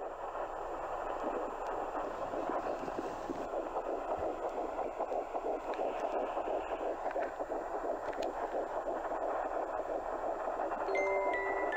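Whooshing, gurgling sound of a fetal ultrasound Doppler picking up the womb and heartbeat. Near the end, bell-like chime notes begin over it.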